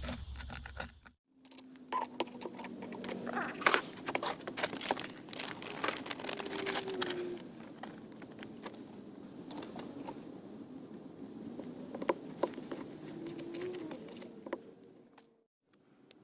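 Batch of high-temperature cement being mixed and handled: irregular scraping with many small clicks and knocks.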